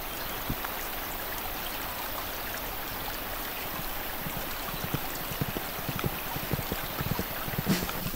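Rushing river water in a gorge: a steady, even hiss of flowing water. Near the end, a growing run of sharp taps joins in.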